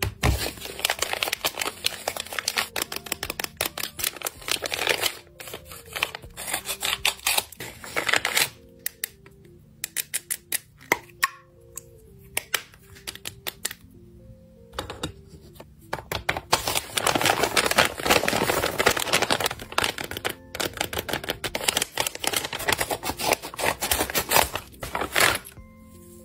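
Paper mailer bags and other packaging crinkling and rustling in bursts as hands open and handle small items, with many small clicks and taps. Soft background music plays underneath. The longest, loudest rustling comes a little past the middle.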